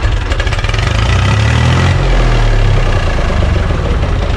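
UTB 445 tractor's diesel engine running, its pitch rising a little about a second in and settling back down about three seconds in.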